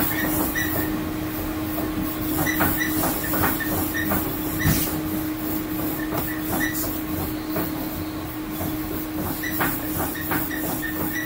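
Servo-hydraulic load and boundary condition boxes running a real-time earthquake test. A steady hum and hiss carries on throughout, with irregular clicks and knocks from the actuators as they drive the pier specimens. One knock a little before the middle is louder than the rest.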